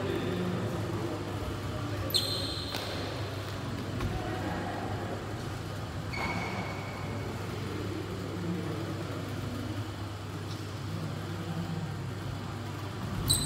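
Badminton hall between rallies: a steady low hum with faint, distant voices, and a couple of short squeaks, about two seconds in and again at six. Near the end there is a single sharp hit as play resumes.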